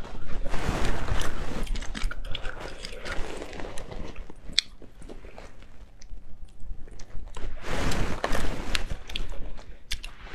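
Close-up eating sounds: spicy sea snails being sucked out of their shells and chewed, in uneven noisy spells with small clicks.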